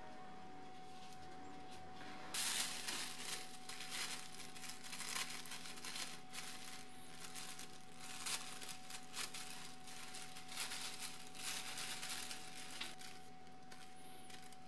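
Thin plastic bag crinkling and rustling as it is handled and cut with scissors. The sound starts abruptly about two seconds in, goes on in uneven crackles and dies away shortly before the end.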